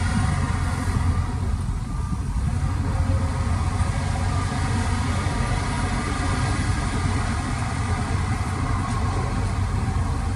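Heavy construction machinery's diesel engine running steadily, a low rumble.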